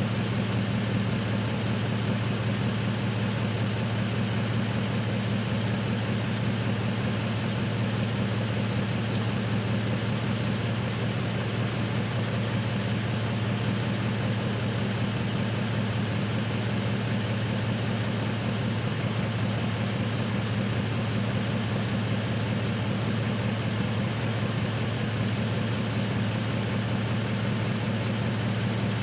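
Truck engine idling steadily, an even low hum with a fine rapid pulse that does not change.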